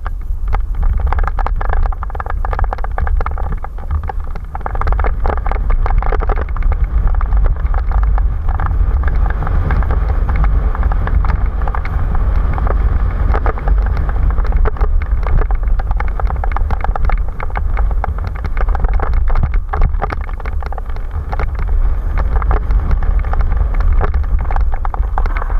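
Mountain bike descending a dirt and gravel trail, heard from a camera mounted on the bike. There is a loud low wind rumble on the microphone, tyres rolling over dirt and stones, and constant rattles and knocks from the bike over bumps.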